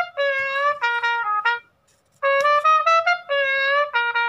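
Music: a short phrase of quick, separate notes on a single brass-sounding instrument. It plays once, pauses briefly, and plays again.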